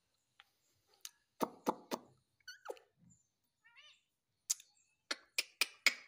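Indian ringneck parakeet making a series of sharp clicks and knocks: four close together about a second in, then five more near the end. A couple of soft, short chirps come in between.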